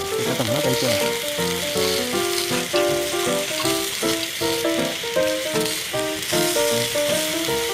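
Slices of pork sizzling on a wire grate over charcoal, with background music of a simple stepping melody playing over it.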